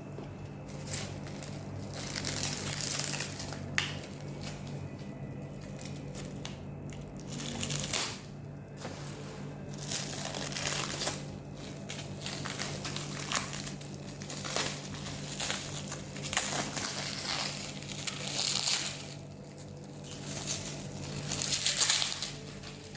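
Packaging crinkling and rustling in irregular bursts as an air rifle is unwrapped by hand, with a few sharp clicks, over a steady low hum.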